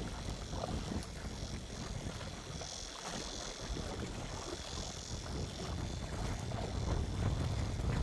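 Sea waves washing in, swelling and easing every few seconds, with wind rumbling on the microphone.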